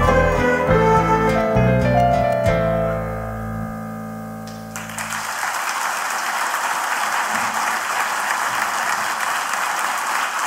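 A mixed ensemble of violins, guitars and piano ends a piece on a held final chord that fades out, and about five seconds in an audience breaks into steady applause.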